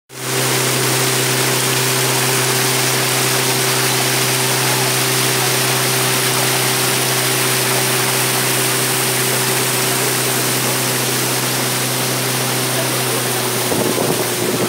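Pirogue's outboard motor running steadily at cruising speed, an even engine hum over the rush of water along the hull.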